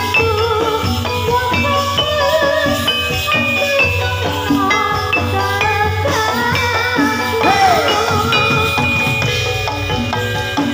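Live Javanese gamelan music accompanying a jathilan horse-trance dance: struck bronze metallophones play a busy, quick-changing melody over a steady drum rhythm, with a wavering melody line above.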